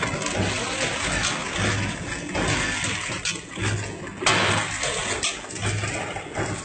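Popcorn packing machine running: loose popcorn rattling and pouring through its stainless steel feed chute and bowl, with a low electric hum that switches on and off every second or two.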